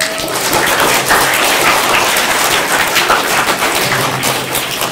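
Audience applauding: many hands clapping at once, starting suddenly and keeping up a dense patter.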